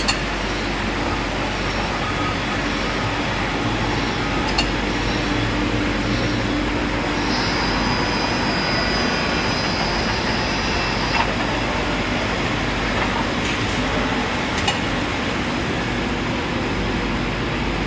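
Unitech metal lathe running steadily, its motor and drive giving an even mechanical noise with a low hum. A few short sharp clicks come through, and a high steady tone sounds for a few seconds midway.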